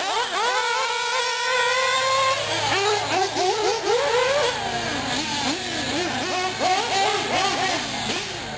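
1/8-scale nitro R/C buggies' small glow engines running around a dirt track, high-pitched: one long rising pull for about two seconds, then rapid up-and-down revving for the rest.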